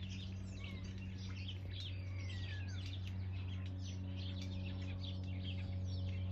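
Garden birds chirping and calling, many overlapping at once, with a few falling whistled notes, over a steady low hum.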